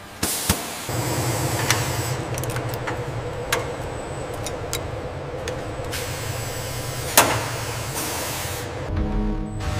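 Factory floor ambience: a steady low machinery hum with a few sharp metallic clicks and knocks, and bursts of air hiss at the start and again near the end.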